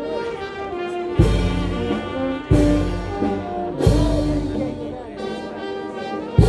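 Brass band playing a slow processional tune, held horn notes over a heavy drum beat struck about every 1.3 seconds.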